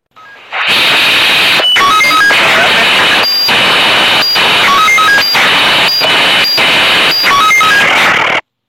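Police walkie-talkie sound effect: loud, steady radio static broken by short dropouts, with three quick runs of short stepped beep tones. It cuts off suddenly near the end.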